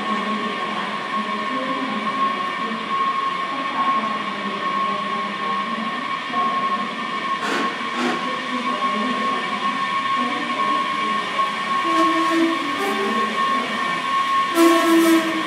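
Washington Metro train: a steady high-pitched electrical whine with overtones above it, with a few sharp clicks and knocks, loudest near the end.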